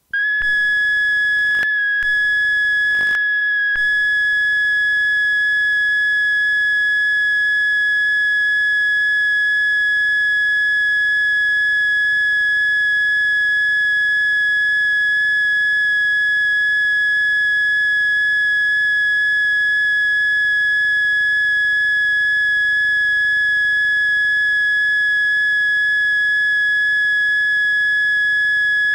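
Steady high-pitched line-up test tone accompanying colour bars at the head of a VHS tape, held at one pitch, with a couple of brief dropouts in the first few seconds.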